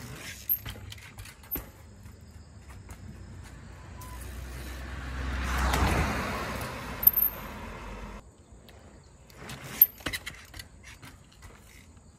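A vehicle passing by, its sound swelling and then fading over about four seconds around the middle, with a few scattered sharp clicks and knocks.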